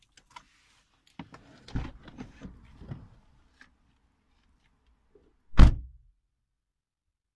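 A person climbing out of a car, heard from inside the cabin: several knocks and rustles of the door and seat, then about five and a half seconds in the car door is shut with one loud, deep thud.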